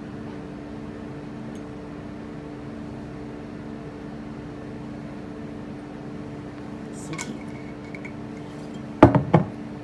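Bourbon poured from a glass bottle into a shot glass over a steady low hum, with a light glass clink and short ring about seven seconds in. Near the end come two sharp knocks, the loudest sounds, as the glass bottle is set down on the wooden bar counter.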